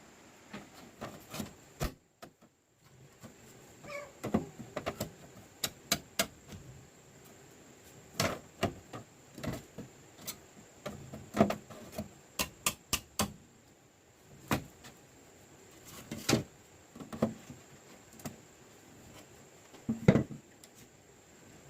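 Irregular sharp knocks and clicks, several a second in clusters, some loud, over a faint steady high-pitched tone.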